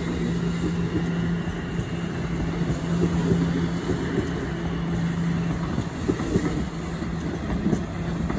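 TTC Toronto Rocket subway train running along open surface track: a steady rumble of steel wheels on rail with a steady low hum. A few sharper wheel clacks come about six and eight seconds in.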